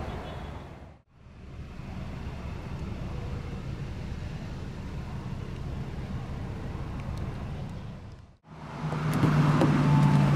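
Steady low rumble of a motor vehicle that cuts out briefly twice. Near the end it comes back louder, with a low steady hum.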